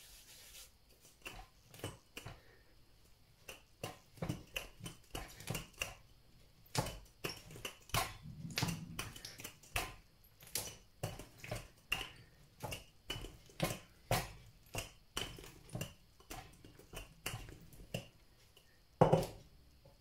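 Wooden rolling pin rolling out bread dough on a stainless steel worktop: a run of irregular short knocks and taps, two or three a second, as the pin and hands meet the metal. One louder knock near the end.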